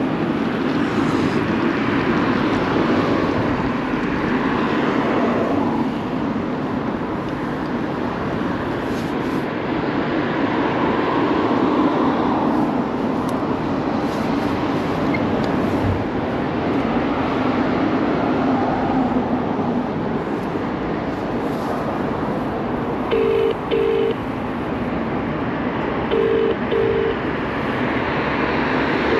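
Wind on the microphone and road noise as an electric bike rides along a city street, a steady rushing haze. Near the end come two pairs of short electronic beeps, a few seconds apart.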